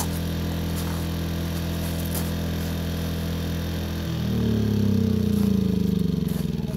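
Small portable generator engine running at a steady idle. About four seconds in it speeds up and grows louder, its pitch wavering.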